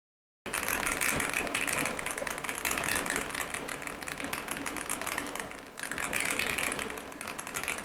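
Rapid, continuous typing on a Chilkey ND104 104-key mechanical keyboard: a dense clatter of keystrokes that starts abruptly about half a second in, with a brief lull about two-thirds of the way through.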